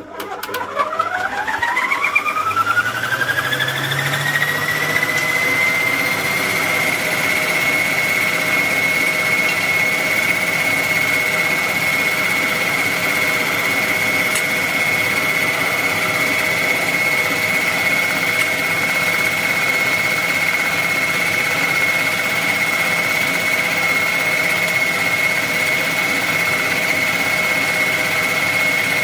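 Electric stand mixer motor starting and whining up to medium speed over the first few seconds, then running steadily with its wire whisk beating the cake batter.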